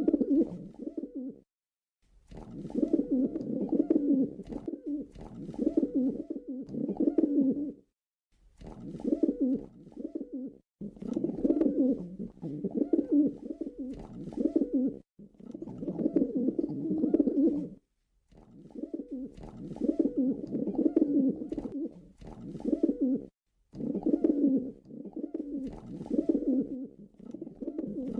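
Pigeon cooing, low-pitched, in repeated bouts of a few seconds each broken by short silences.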